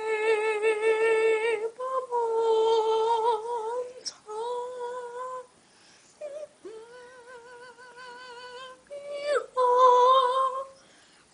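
A girl humming a wordless tune in long held notes with a slight waver, in about five phrases with short breaks between them, the phrase just after the middle softer than the rest.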